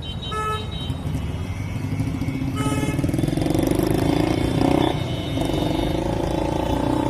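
A motor vehicle engine revving up, rising in pitch and running on with a brief dip about five seconds in, over a steady low rumble of wind on the microphone. A short horn toot sounds at the very start.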